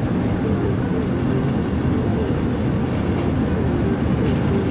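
Steady road and engine rumble of a moving car, heard from inside the cabin.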